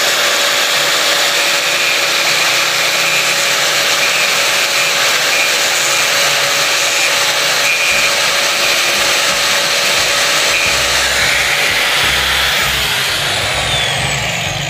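Small handheld angle grinder running at full speed, its disc grinding and trimming an acrylic turn-signal housing, with a steady whine over the grinding noise. About twelve seconds in, the grinder is switched off and winds down with a falling whine.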